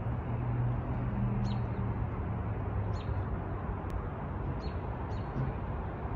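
Street ambience at dusk: a steady rush of traffic noise with a low hum, and a bird's short high chirp repeating about every second and a half.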